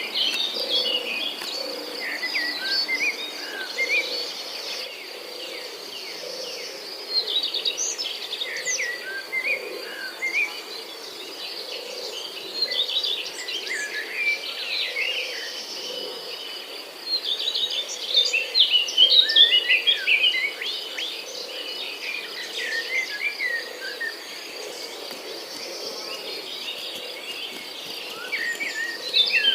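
Several birds chirping and trilling in short, quick phrases, busiest about a third of the way in and again past the middle, over a steady high insect drone. A faint low sound pulses about once a second underneath.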